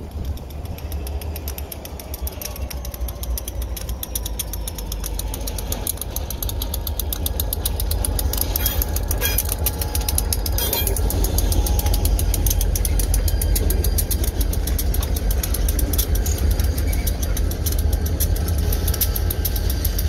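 Two diesel freight locomotives moving light at low speed, their engines rumbling louder as they draw near and pass. A few sharp metallic clicks from the wheels and track come about nine to eleven seconds in.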